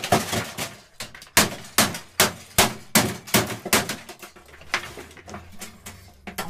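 A television being smashed: a rapid run of about a dozen hard clanging blows, two to three a second, thinning out after about four seconds.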